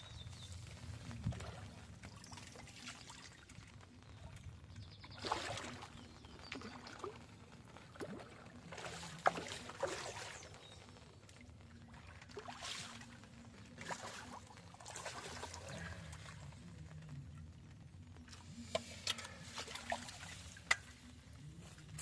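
Water splashing and trickling in short irregular bursts, with a few sharp clicks and knocks.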